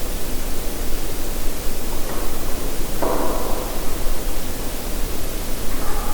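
Steady hiss from a night field recording, with a faint, unidentified sound that starts suddenly about three seconds in and fades within a second, and another faint one near the end.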